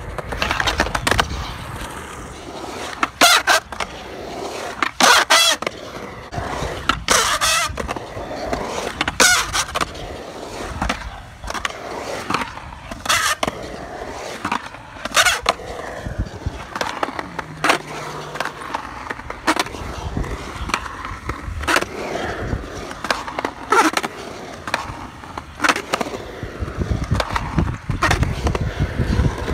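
Skateboard wheels rolling over a concrete bowl, with sharp clacks and scrapes every couple of seconds as the board's trucks strike the metal coping at the lip.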